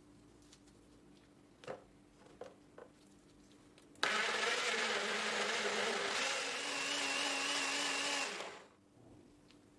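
A few light knocks, then a Müller Koch personal blender's motor starts abruptly about four seconds in and runs for about four and a half seconds, puréeing tomatoes, yogurt, garlic and spices; its pitch steps up about halfway through, and it spins down quickly when switched off.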